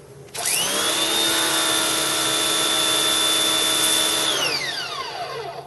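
Force 1800 electric pressure washer's motor and pump starting up with a quick rise in pitch, then running steadily with a whine over the hiss of water spraying through the turbo nozzle. Near the end it winds down with a falling pitch.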